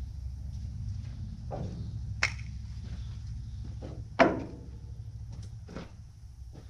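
Scattered knocks and clunks of welded steel pipe racks being handled on a flatbed trailer, the loudest about four seconds in with a short ring, over a steady low rumble.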